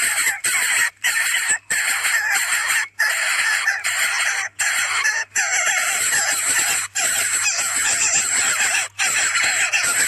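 Coucal nestlings giving harsh, raspy begging calls, a dense run of sound broken by brief, abrupt gaps.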